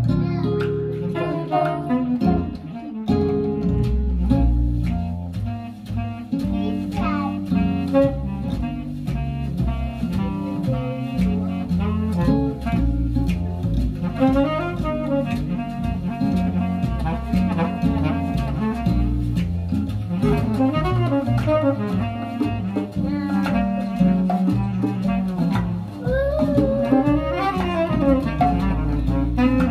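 Recorded music playing through a hi-fi system's floor-standing loudspeakers, driven by AGD Production Audion tube monoblock amplifiers, with a strong moving bass line under the melody.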